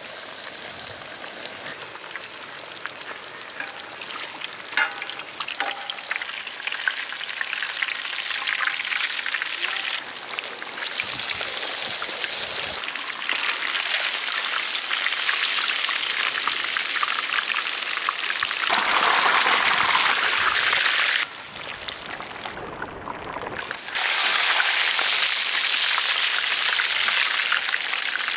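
A chip-crusted fish deep-frying in hot oil, a dense steady sizzle and crackle of bubbling oil. The level steps up and down a few times, dipping briefly about three-quarters of the way through.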